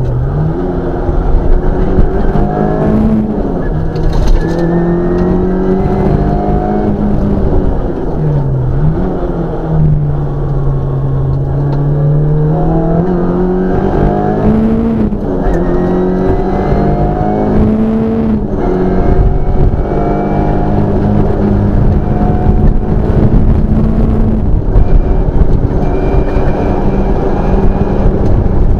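Škoda 130 LR rally car's rear-mounted four-cylinder engine at full stage pace, heard from inside the cabin: revs climb through the gears, drop sharply at each shift or lift, and settle once into a longer low, steady run before climbing again.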